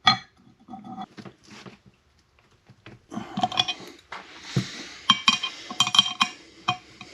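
Metal clinking and clicking as the bolts of a new aluminium rear sprocket are fitted and tightened by hand with tools on a pit bike's rear wheel. A few scattered clinks come first, then a busy run of clicks and clinks in the second half.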